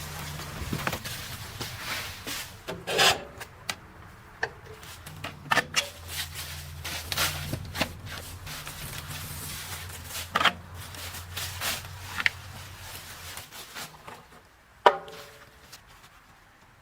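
Wood cracking and splintering in many irregular sharp snaps over a low, steady machine engine hum. The hum stops about 13 seconds in, and a single loud knock comes near 15 seconds.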